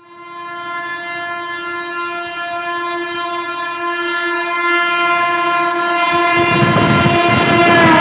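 WAP-7 electric locomotive's horn held in one long continuous blast, growing louder as the express approaches at speed. From about six seconds in, the rumble and clatter of the train running through rises under it, and the horn's pitch drops as the locomotive passes.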